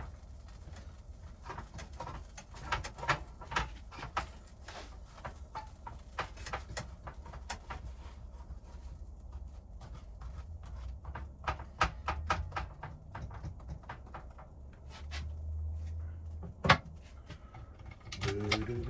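Stacked pizzas frying in a pan: scattered light clicks, pops and taps over a low steady rumble, with one sharp knock about seventeen seconds in.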